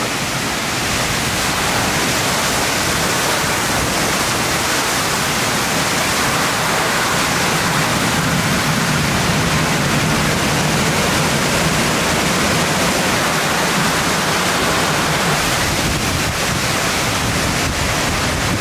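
Summer rainstorm: heavy rain pouring down with strong wind gusting through the trees, a loud, steady rush.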